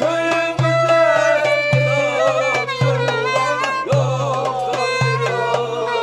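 Turkish folk music: a wavering, ornamented melody over a low drum beat that falls about once a second.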